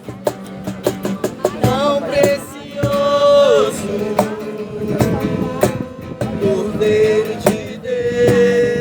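Worship song performed live: a strummed acoustic guitar accompanying singing, with long held notes that slide between pitches.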